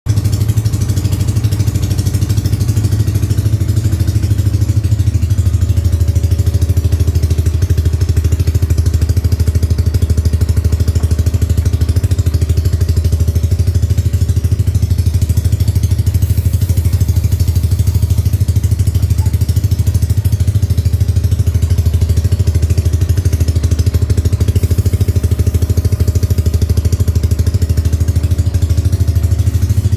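Yamaha NMAX scooter's single-cylinder engine idling steadily through an aftermarket exhaust.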